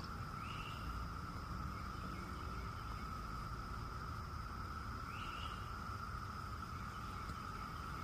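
Steady insect chorus, one unbroken high drone, with a bird giving a short rising call twice, about half a second in and again about five seconds in, over a low rumble of wind on the microphone.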